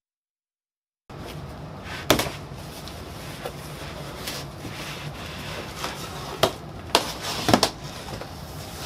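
Silence for about a second, then a large cardboard box being handled and its lid pulled open: several sharp cardboard knocks and scrapes over a steady low room hum, the loudest knocks in the second half.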